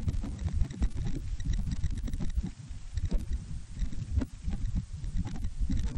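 Wind buffeting the microphone: an uneven low rumble that swells and dips, with scattered light clicks of the camera being handled.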